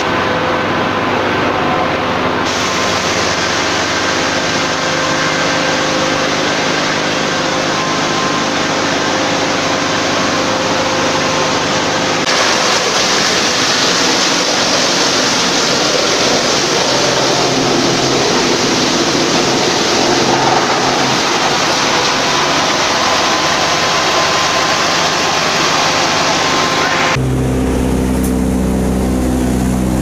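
Diesel-engine-driven disc wood chipper running: a loud, dense, steady noise with a few faint steady tones, growing a little louder about twelve seconds in. Near the end the hiss drops away and the low hum of the diesel engine is left.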